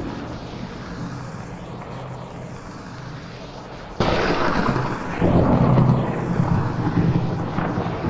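Thunderstorm with steady rain: a low rolling rumble, then a sudden loud thunder crack about halfway through that rolls on into heavier rumbling. The mix is 8D audio, panning the storm around the listener's head.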